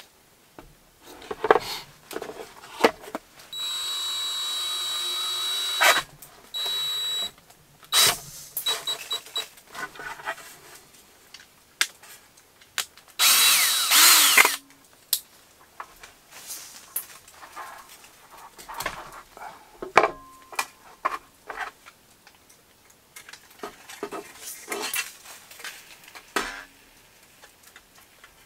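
Cordless drill running: two steady runs with a thin high whine early on, then a louder, rougher run a little before halfway as the bit goes through a plastic thermometer case. Scattered clicks and knocks of handling between runs.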